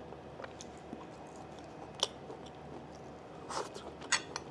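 A person chewing a mouthful of steak close to a clip-on microphone, with scattered sharp mouth clicks. Near the end a few quick clinks of a fork against the plate.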